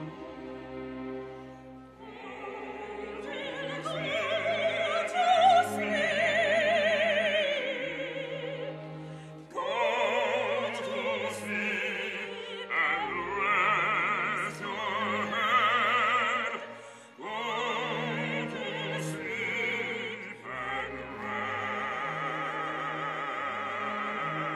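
Operatic singing with wide vibrato over instrumental accompaniment, in several long held phrases. The instruments play alone for about the first two seconds before the voice comes in.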